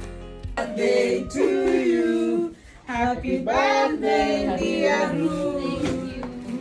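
A woman singing a melody without accompaniment, with a short pause for breath about two and a half seconds in.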